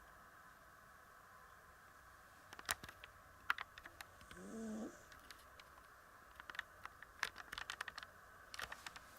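Sleeping Persian cat snoring: one short pitched snore about halfway through. Scattered sharp clicks sound around it, some louder than the snore, over a faint steady hum.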